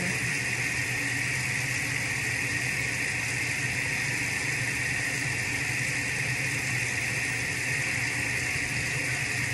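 Steady rushing of running water from a tap or shower, unbroken, with a low hum underneath.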